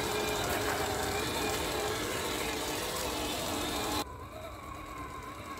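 RGT EX86190 Rescuer 1/10-scale RC crawler driving, its stock electric motor and geared drivetrain whining, the pitch rising and falling with the throttle. About four seconds in, the sound cuts abruptly to a quieter, duller stretch of the same kind of whine.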